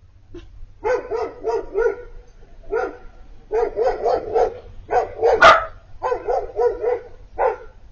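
Siberian husky puppy "talking": runs of short, wavering, whiny yelps, several a second, in quick clusters, the crying of a young husky excited at the sight of another dog. One sharper, louder bark about five and a half seconds in.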